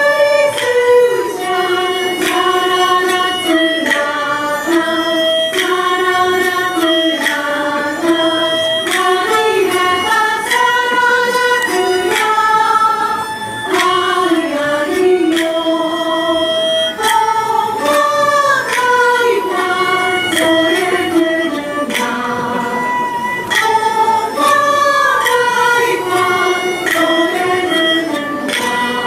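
Minshingaku (Ming-Qing music) ensemble performing: voices singing a melody together over moon lutes and other Chinese instruments, steady and unbroken.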